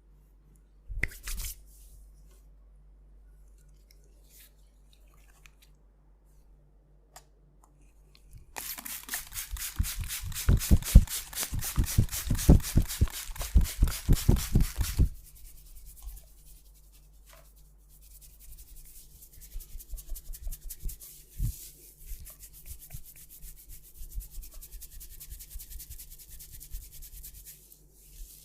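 Hands rubbing a head of hair in a massage. There is a short burst about a second in, then a loud stretch of rapid rhythmic rubbing strokes, several a second, in the middle, and softer rhythmic rubbing near the end.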